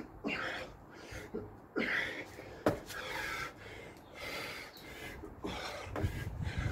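A man breathing hard in loud gasps and pants, worn out from long sets of burpees and jump squats. A few sharp thuds of feet and hands landing on paving slabs are mixed in.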